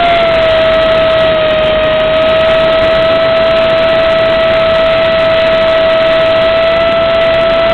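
Electric ducted-fan power unit of an RC foam F-18 jet, run on a 4S battery at about 900 W, whining steadily at cruise, heard from a camera on board the plane. The whine dips slightly in pitch early on and then holds level over a steady rushing hiss.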